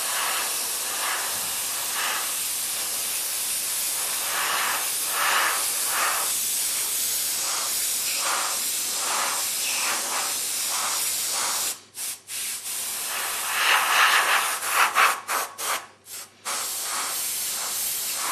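Airbrush spraying paint in a steady hiss that pulses as the trigger is worked, cutting off briefly twice in the second half as the trigger is released.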